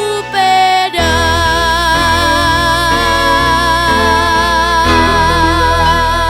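Instrumental tango music: short notes, then about a second in a full chord enters, with wavering held tones over a moving bass line.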